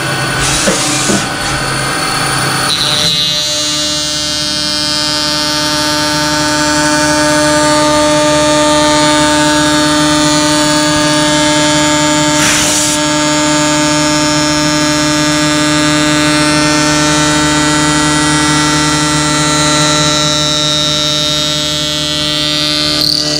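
CNC vertical milling machine spindle running at steady speed while a chamfer cutter bevels the edge of a plastic part, a steady whine of several tones that sets in about three seconds in. A short hiss comes about midway.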